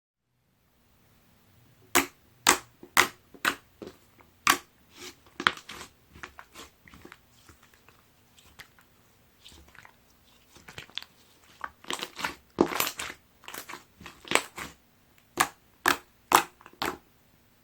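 Light green slime being pressed and worked by hand, giving irregular sharp pops and clicks. They start about two seconds in and come thickest a little past the middle.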